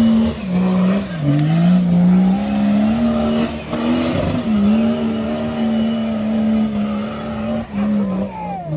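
An off-road 4x4's engine revving hard and held at high revs. The pitch sags and climbs back about a second in, again around four and a half seconds, and near the end.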